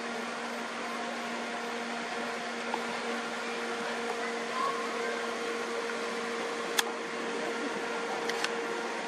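Steady outdoor background hiss with a low, even hum, picked up by a camera's built-in microphone. A sharp click comes about seven seconds in, and two lighter clicks follow a second or so later.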